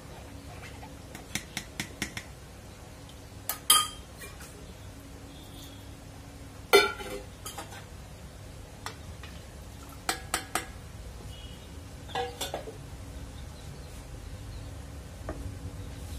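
A spoon stirring flour and water in a bowl, clinking and knocking against dishes in scattered clusters, the loudest clinks about four and seven seconds in, over a steady low hum.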